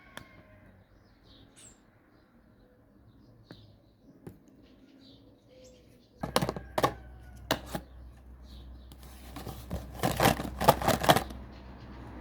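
Handling clatter of clicks and knocks, with a low steady hum starting about six seconds in; the loudest run of knocks comes near the end.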